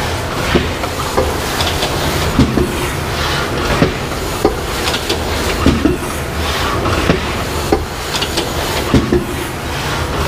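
SATE S700 rigid box making machine running, a steady mechanical clatter with repeated sharp clacks about once a second.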